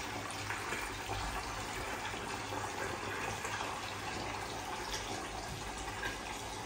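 Water running steadily from a bath tap, a thin stream splashing into the shallow water in the tub.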